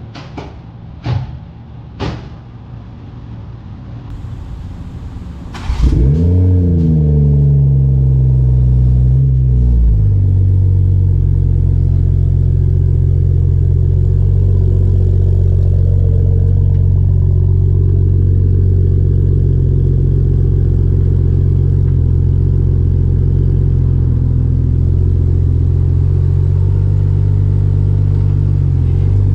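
A few sharp knocks, then about six seconds in the GR Supra's B58 turbocharged inline-six starts through a freshly fitted MADE Motorsports single-exit titanium exhaust. The revs flare up on start-up and settle after a few seconds into a steady idle.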